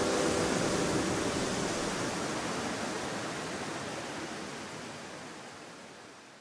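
A steady, even rushing hiss fading out slowly and steadily, with the last held musical notes dying away about half a second in.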